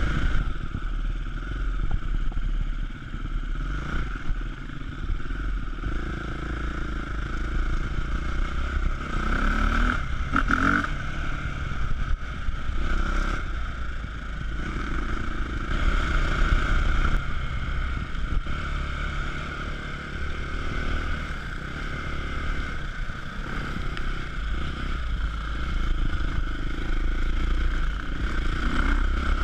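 KTM enduro motorcycle engine running under constantly changing throttle, rising and falling as the bike is ridden over a rough dirt trail. A few knocks and rattles from the bike on the uneven ground, about ten to thirteen seconds in.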